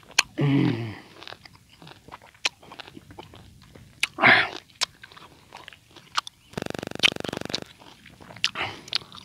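Close-up, wet chewing and biting of a peeled lemon, with many small crunches and mouth clicks. There is a short vocal 'mm' just after the start, a louder noisy smear about four seconds in, and a buzz lasting about a second near the end.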